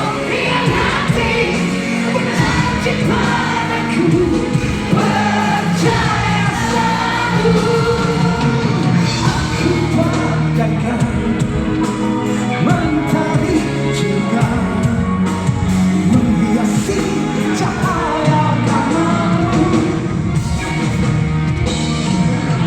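Live band music with a singer, continuous and loud.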